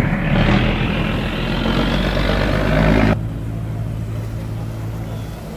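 Cargo barge's diesel engine running hard as the barge passes through the open sluice gate, over a loud rushing noise of turbulent water. About three seconds in the sound cuts off abruptly to a quieter, steady engine drone.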